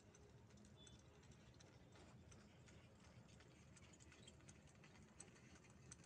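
Faint, irregular clip-clop of a pair of bullocks' hooves on a paved road as an ox cart passes, under near silence.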